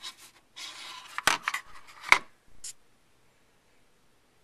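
Polaroid Spectra remote control unit being fitted onto a tripod by hand: scraping and rubbing of hard parts, with sharp clicks about a second and two seconds in.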